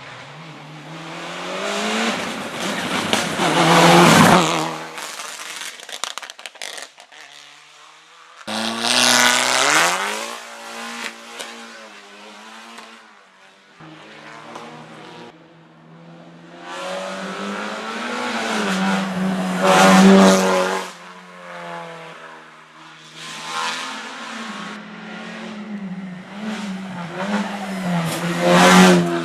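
Hill climb race car engines at full throttle, revving up through the gears and passing close by several times, each pass swelling loud and then fading, with the pitch dropping at each gear change.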